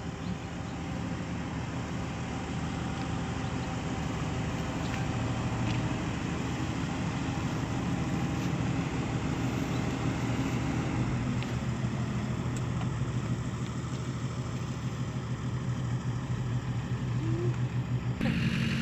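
Komatsu PC160 excavator's diesel engine idling steadily, growing louder over the first few seconds. Its low running note shifts slightly about halfway through.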